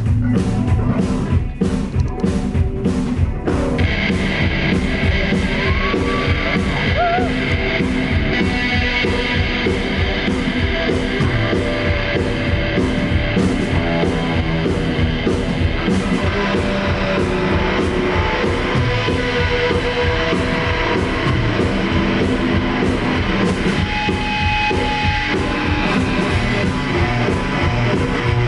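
Live rock band playing an instrumental intro: a drum kit beat on its own at first, then electric guitar and bass come in about three and a half seconds in and the full band plays on steadily.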